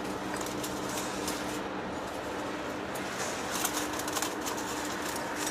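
Heavy-duty face lathe running: a steady machine hum with a low tone, with faint ticks scattered through, more of them in the second half.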